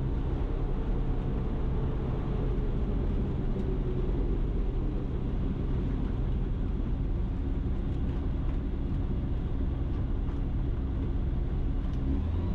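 Ikarus C42 microlight's engine and propeller running steadily at low power during the landing roll-out and taxi, a low, even drone that grows slightly louder near the end.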